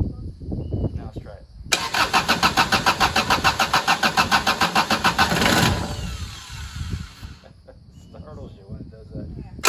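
Kubota D662 three-cylinder diesel cranking over on its starter in a start attempt, a loud rhythmic chugging that begins suddenly about two seconds in and stops after about four seconds without the engine catching.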